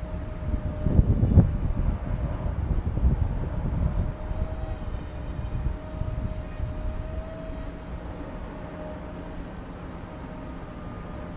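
Radio-controlled model airplane's motor whining steadily in flight, its pitch wavering slightly. Gusts of wind rumble on the microphone in the first couple of seconds.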